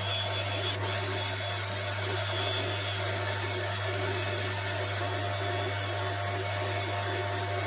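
Wood lathe running with a steady hum while a rotary sanding disc is held against the spinning African padauk handle, giving a continuous whirring hiss of power sanding.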